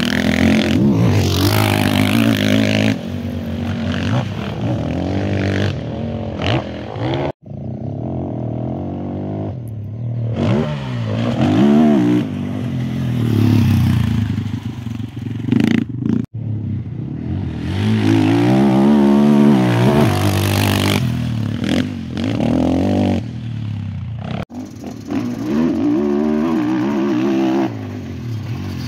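Sidecar motocross outfits' engines revving hard on a dirt track, the pitch rising and falling again and again with each throttle change and gear shift. The sound breaks off abruptly three times where clips are joined.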